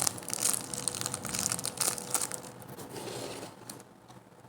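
Hands handling a squishy toy close to the microphone: irregular crinkling and rustling that dies down near the end.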